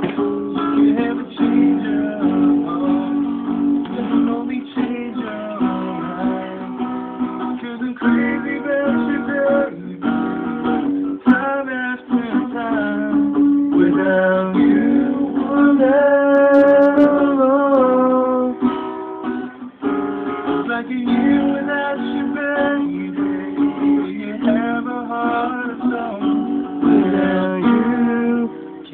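Acoustic guitar strumming chords through an instrumental passage with no singing. About halfway through, a held, wavering note rises above the chords for a couple of seconds.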